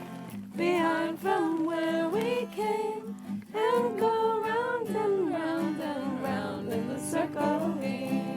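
Singing to a strummed acoustic guitar: a sung melody held over steady guitar chords.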